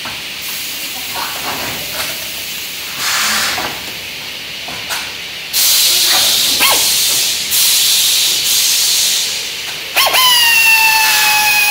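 Compressed air hissing in several bursts from a pneumatic clamping bench as its clamps are worked, the loudest and longest between about six and nine seconds in. Near the end an air tool runs with a steady whine for about two seconds, its pitch sagging slightly.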